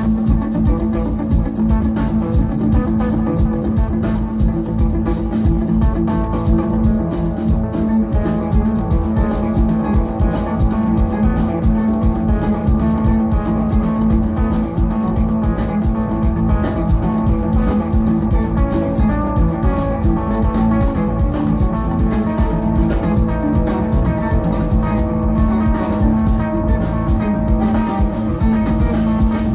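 Live rock band playing: electric guitars, bass guitar and drum kit with a steady beat.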